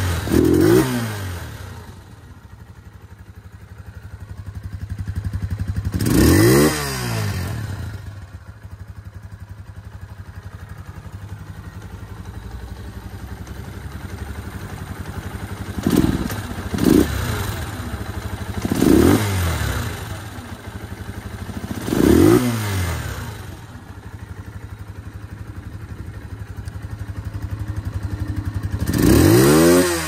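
Gilera VC 150's air-cooled single-cylinder four-stroke engine idling, blipped about seven times with short throttle revs that rise and fall back to idle, two of them in quick succession midway.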